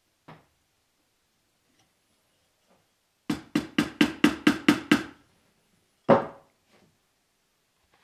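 Steel claw hammer tapping a twig perch into a hole in an apple-wood log: eight quick, even taps in under two seconds, then one harder blow a second later.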